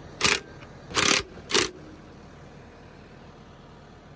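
Makita 18V cordless impact driver hammering bolts tight in three short bursts within the first two seconds, the last two close together.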